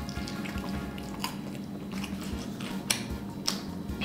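Close-miked chewing of fried chicken, with scattered sharp wet mouth clicks and smacks as the meat is bitten and worked.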